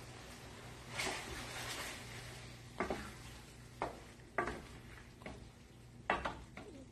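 A utensil stirring penne in a stainless steel skillet on the stove: a soft stretch of stirring about a second in, then several sharp clicks of the utensil against the metal pan.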